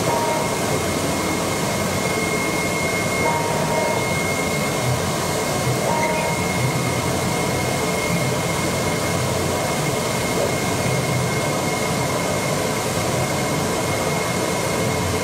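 AOKE DCH-series CNC cardboard cutting table running while it cuts 2 mm E-flute corrugated sheet. It makes a steady whirring with a constant high whine, and brief shorter whines come and go every few seconds.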